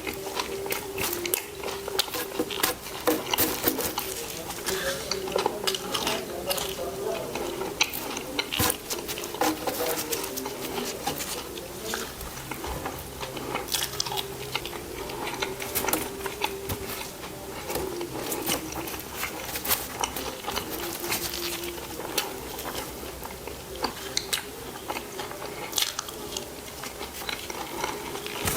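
Close-miked chewing and biting of a burger and fries, with dense, irregular wet clicks and crackles from the mouth.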